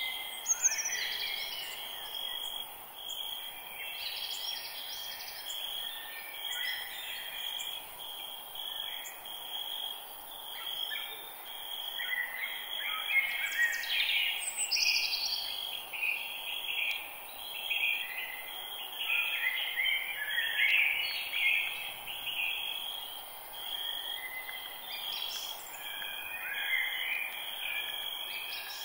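Forest ambience: several birds chirping and singing in short, overlapping phrases over a steady, high-pitched pulsing insect trill.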